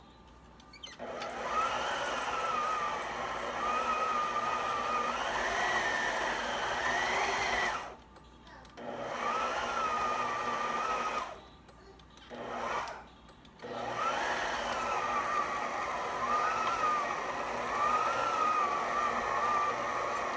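Electric stand mixer's motor whining as it beats a heavy meatloaf mix of ground beef and oatmeal, starting about a second in. Its pitch wanders and rises for a moment, and it is stopped and restarted three times in quick succession about halfway through.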